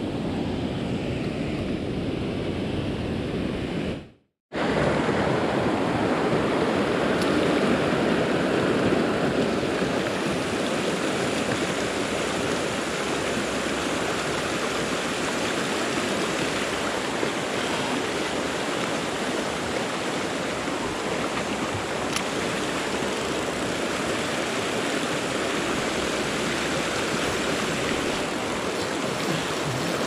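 Mountain stream water rushing steadily over rocks and small riffles. The sound cuts out for a moment about four seconds in.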